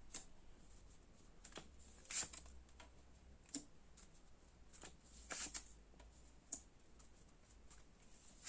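Tarot cards being handled: a few soft, separate card rustles and flicks.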